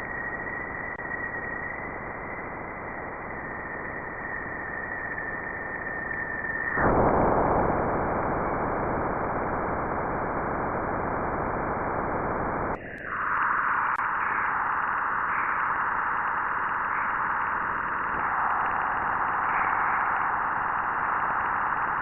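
Space sounds: recordings of space radio and plasma-wave emissions turned into audio, heard as steady static-like hiss. It first has a steady high whistle over it, switches abruptly to plain hiss about seven seconds in, and changes again about thirteen seconds in to a brighter, higher hiss.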